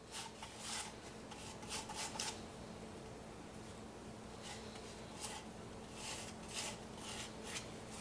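A pastry brush spreading softened peanut butter over a cardboard toilet-paper roll: soft rubbing and scraping strokes, in a run of strokes at the start and another from about halfway to near the end, over a faint steady hum.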